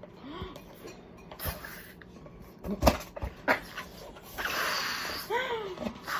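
Rubber balloon being handled and blown up: scattered knocks and rubbery squeaks, a breathy rush of air about four and a half seconds in, and a short squeak that rises and falls near the end.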